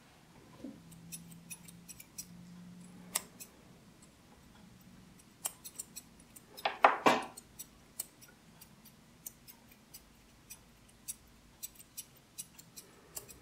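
Curved grooming scissors snipping the hair between a dog's toes: a string of short, sharp metal snips at an uneven pace, with one brief, louder noise about seven seconds in.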